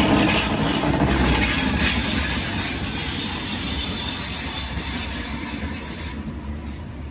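Ouigo double-deck Alstom Euroduplex high-speed train running past close by, its wheels rumbling on the track. A high, steady wheel squeal rings over the rumble from about a second in until about six seconds, then the sound eases off as the cars go by.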